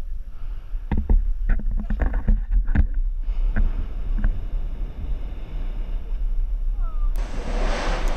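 Low rumbling at the rim of the active Mt Yasur crater, with wind buffeting the microphone and a run of sharp cracks in the first three seconds. About seven seconds in, the sound changes suddenly to a louder, hissing rush.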